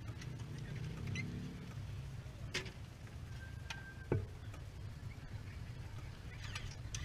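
Quiet handling sounds of a rider pulling on a motorcycle helmet: a few small clicks and one knock about four seconds in, over a steady low rumble.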